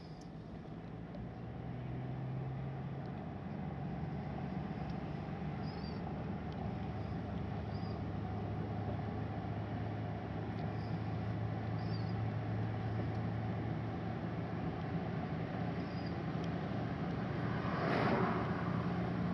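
Car engine and tyre noise heard from inside the cabin while driving: a steady low hum over road rumble, growing a little louder over the first few seconds. A brief louder rush comes near the end.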